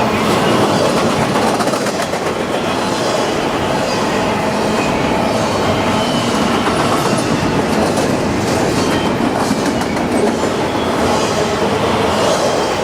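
Freight train cars passing close at speed: a loud, steady rush of rolling wheels with clickety-clack over the rail joints and a faint squeal of wheels on rail.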